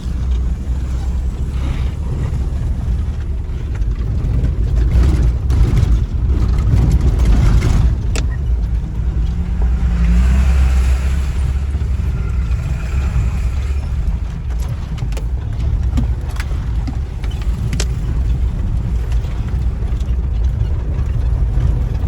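A vehicle driving along a rough road under construction: steady low rumble of engine and road noise, with scattered knocks and rattles and a faint higher tone for a few seconds midway.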